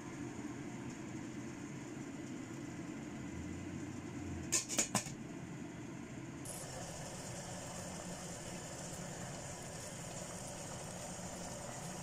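Stainless steamer pot heating on a stovetop burner, a steady low rumble, with three quick metallic clicks about four and a half seconds in as the glass lid goes on. From about six and a half seconds a steady hiss of steam and boiling water joins it.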